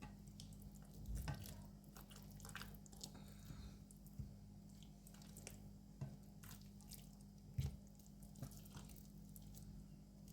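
Faint wet squishing and soft scattered clicks of hands rubbing butter into a raw lamb leg in a roasting tray, over a steady low hum.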